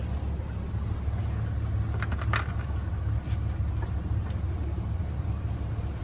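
Motorboat under way, a steady low rumble, with a few faint clicks about two seconds in.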